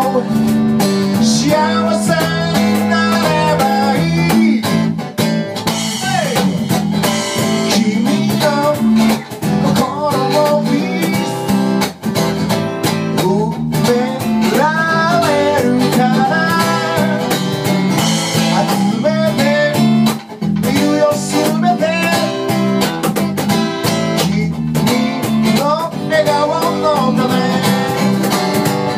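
Live acoustic band playing: acoustic guitar strumming, electric bass, and cajon keeping a steady beat.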